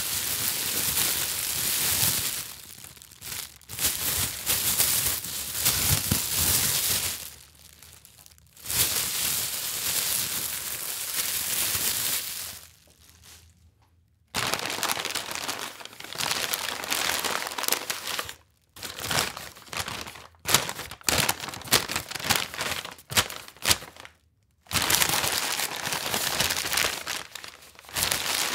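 Bags being handled and crumpled, with crisp crinkling and rustling. Long stretches of continuous crinkling are broken by short pauses, and in the second half there is a run of short, sharp crinkles.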